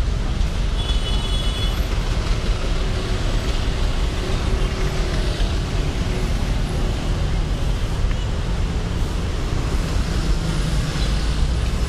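Steady city road traffic running past, a constant low rumble of engines and tyres.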